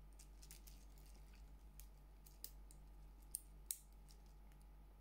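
Small, sharp clicks and clinks from a wood-and-metal link watch bracelet being flexed and folded in the hands, a scattered run in the first two seconds, then three louder clicks between about two and a half and four seconds in.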